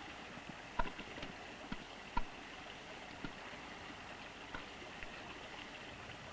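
Faint steady background hiss with a few scattered soft clicks or knocks.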